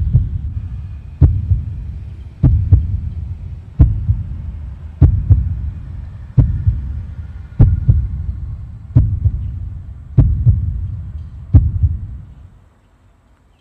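Slow, heavy heartbeat-like thumping, about one beat every 1.25 seconds, some beats doubled, over a faint hum. It fades out near the end.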